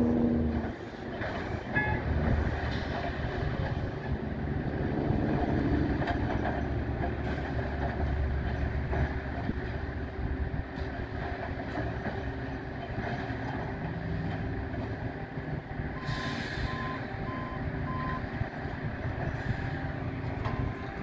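Diesel-hydraulic track machinery replacing railroad ties, a Nordco TRIPP tie machine among it, running with a steady low rumble. About three-quarters of the way through there is a brief hiss and a short run of backup-alarm beeps.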